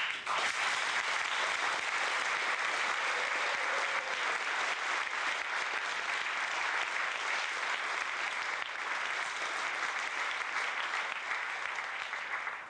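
Audience applauding steadily, a dense and even clapping throughout.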